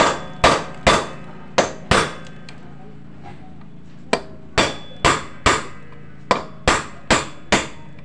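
Hammer blows knocking the worn, loose 6204 ball bearing out of a Yamaha Mio scooter's aluminium gearbox cover. There are about a dozen sharp strikes at roughly two a second, each with a short ring: five, a pause of about two seconds, then two runs of four.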